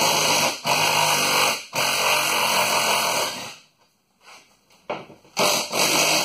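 Power tool run in bursts to back out small 10 mm bolts: a long run of about three and a half seconds, broken by two brief stops, then a shorter burst near the end.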